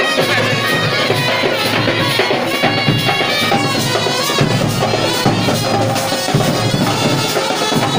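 Lively festival folk music, with drums beating a steady rhythm under a melody line.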